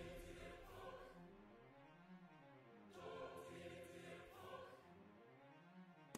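Faint background music: soft, sustained choir-like voices whose pitch slowly rises and falls.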